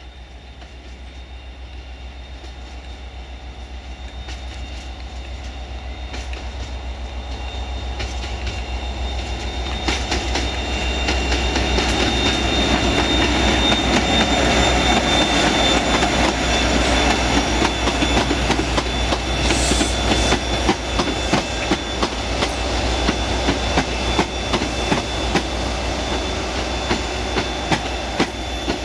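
Class 57 diesel locomotive hauling passenger coaches passes close by: a rumble that grows steadily louder for about twelve seconds, then a rapid run of clicks as the wheels cross rail joints, settling into a regular clickety-clack near the end.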